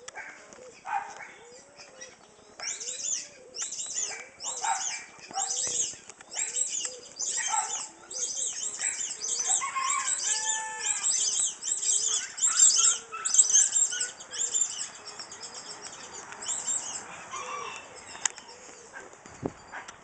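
A pen of chickens and ducks: a steady run of short repeated calls, about one to two a second, under a busy patter of wing flapping and rustling that dies down near the end.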